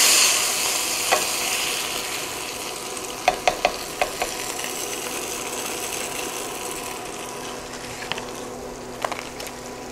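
Floured cube steaks frying in butter and oil, a steady sizzle that slowly fades as the steaks are lifted out of the pan. A wooden spatula knocks against the pan a few times, in a quick cluster about three to four seconds in and again near the end.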